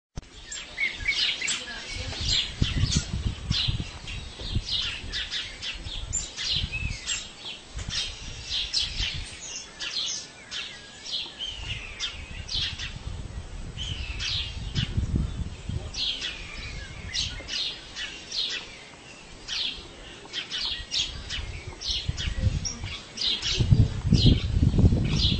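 Small birds chirping many times over, short high calls in quick runs, over a low irregular rumble that grows louder near the end.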